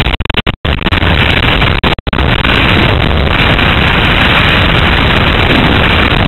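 Loud, steady rushing of wind buffeting a wrist-mounted camera's microphone during a skydive, dropping out briefly twice near the start.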